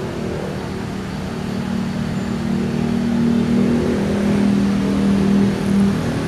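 KRL electric commuter train approaching slowly, its steady low hum growing louder a few seconds in, mixed with motor traffic at the level crossing.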